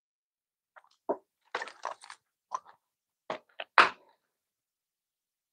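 Someone drinking water from a plastic bottle: a handful of short gulps and small clicks spread over about three seconds.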